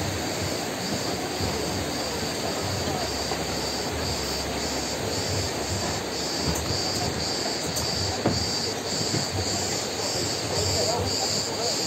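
Steady rush of a fast river over rocks, with a cicada chorus pulsing high above it about twice a second.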